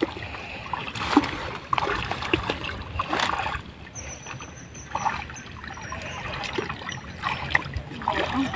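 Water sloshing and splashing in irregular bursts as people wade chest-deep through a lily pond, pushing through the pads and pulling lily stems.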